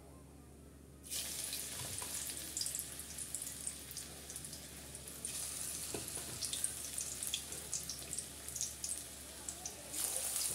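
Hot oil sizzling and crackling as a ball of leafy-greens fritter batter is dropped into the kadai, starting suddenly about a second in. The sizzle swells again about five seconds in and near the end as more batter goes into the oil.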